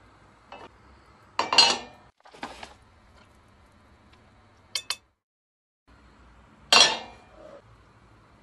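Glass plate, glass oil bottle and dishes clinking and knocking on kitchen surfaces: a handful of separate knocks and clatters, the loudest about a second and a half in and again near the end, with a brief dead gap just past the middle.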